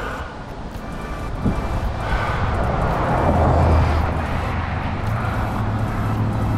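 A motor vehicle passing close by. Its engine and tyre noise swells to a peak about halfway through, and a steady low engine hum carries on after.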